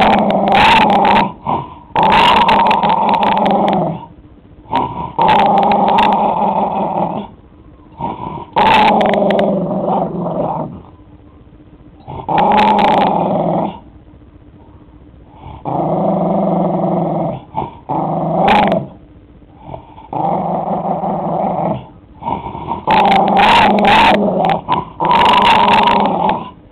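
A puggle (pug–beagle mix) growling in a string of long, loud growls, each lasting a few seconds with short breaks between. He is guarding the chew ball with a treat inside while a hand reaches in to touch it.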